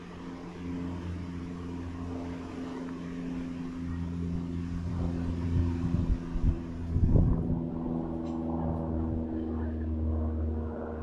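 An engine running steadily with a low, even pitch, with a louder unsettled stretch about six to seven seconds in.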